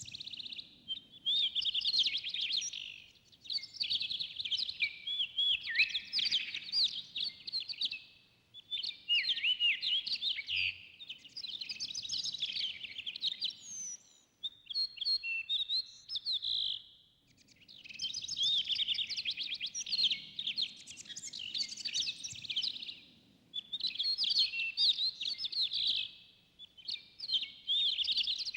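Forest songbirds singing: dense, rapid chirping and warbling phrases of several seconds each, broken by short pauses.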